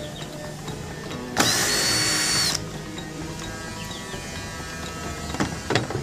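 A cordless drill-driver runs for about a second, a high whine over the motor's rush, backing out a screw on a washing machine's door-lock switch. A few sharp plastic clicks follow near the end as the switch is worked loose.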